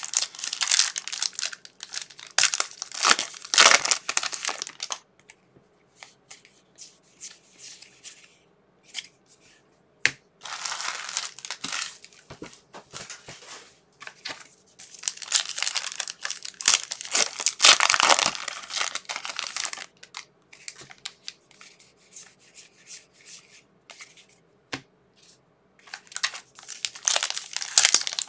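Trading card pack wrappers being torn open and crinkled by hand, in four bouts of a second or two up to about five seconds, with small clicks and rustles in the quieter gaps between.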